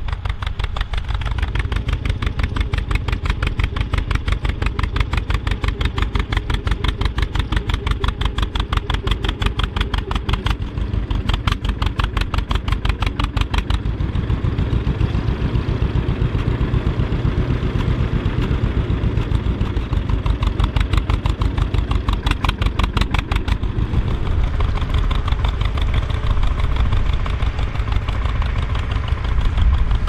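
Vintage John Deere two-cylinder tractor engine running with an even, rapid popping exhaust beat while pulling a two-furrow plough.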